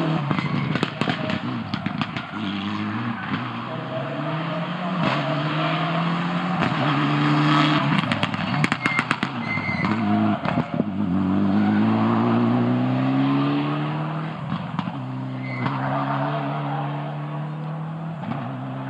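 Rally car engine accelerating hard through the gears, its pitch climbing and then dropping at each shift. Rapid sharp pops sound near the start and again about eight to nine seconds in.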